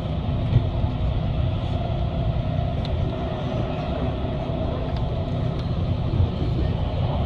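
Steady rumble of a passenger train running, heard from inside the carriage, with a few faint ticks.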